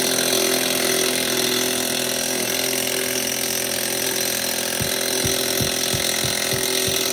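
Power tool running continuously on a stuck tractor wheel nut, a steady mechanical whirr. About five seconds in, a regular knocking joins it at roughly two to three knocks a second.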